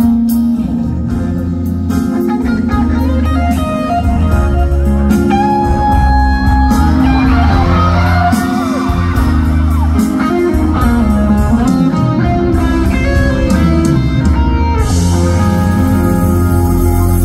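Live band music led by guitar, played loud, with little or no singing.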